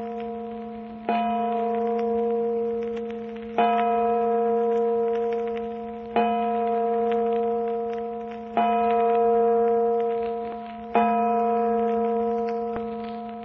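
A church bell tolling slowly: five strikes about two and a half seconds apart, each ringing on and fading until the next.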